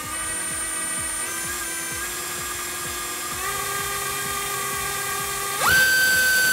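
AMAXinno 2307 2700KV brushless FPV motor spinning a Gemfan 5149 propeller on a thrust-test stand, its electric whine stepping up in pitch as the throttle is raised. Near the end it jumps to a much higher, louder whine at full throttle, a run that gives about 1780 g of thrust at 46 A.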